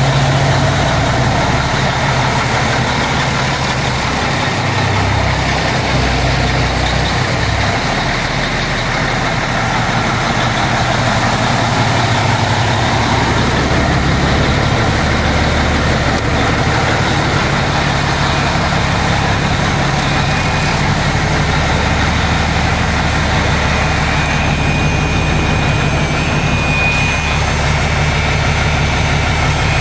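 Heavy diesel truck engine running steadily with a low, even drone.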